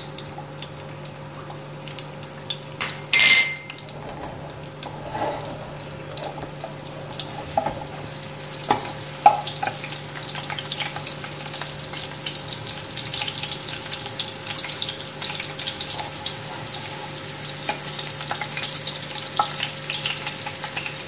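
Thinly sliced onion frying in hot oil in a large aluminium pot, the sizzle and crackle building after the first few seconds and then holding steady. A single ringing clink about three seconds in, over a steady low hum.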